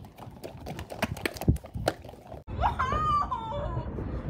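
A run of sharp clicks and knocks, like a phone and toys being handled. Then, after a sudden cut, a low rumble with a high, wavering cry that bends up and down in pitch.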